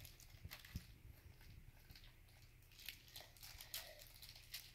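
Faint, scattered crinkling and rustling of a clear plastic bag being handled and opened, with a few light ticks.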